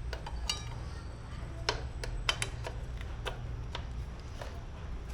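New Brembo sintered brake pads, metal-backed, being fitted into a Brembo monoblock front brake caliper: a run of irregular sharp metallic clicks and taps, some with a brief ring, over a steady low hum.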